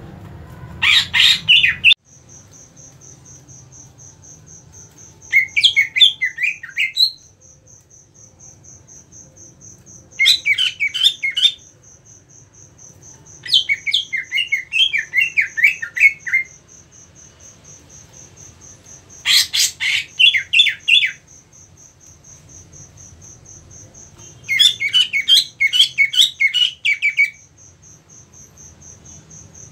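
Male greater green leafbird (cucak ijo) giving its agitated 'ngentrok' song: six loud bursts of fast chattering notes, each one to three seconds long, a few seconds apart.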